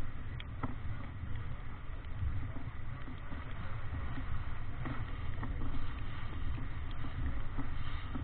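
Sailing yacht driving upwind through rough, choppy water: a steady low rumble of wind on the microphone over the rush of waves and spray along the hull.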